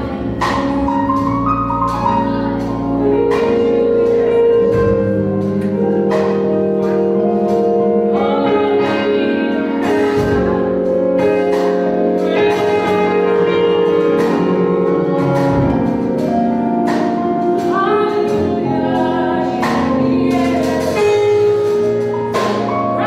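Live gospel worship music: a band with keyboard and drums playing a slow song, with cymbal and drum hits about every two seconds under held keyboard chords, while a group of women sings.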